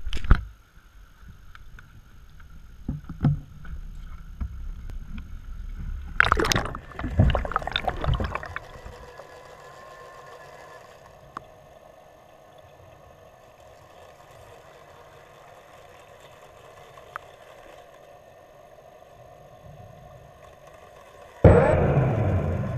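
Water splashing and churning around an underwater microphone in a swimming pool, then a steady hum from a robotic pool cleaner's motor heard through the water, with a loud rush of water again near the end.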